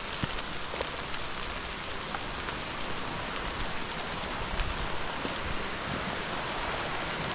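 Heavy rain falling steadily: an even hiss with scattered ticks of individual drops.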